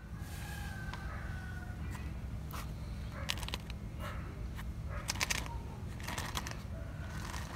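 Rural outdoor background with chickens: a rooster crowing faintly near the start, then several short rustling or scraping sounds over a steady low hum.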